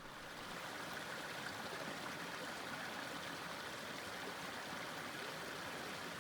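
Creek water flowing steadily, an even rushing sound.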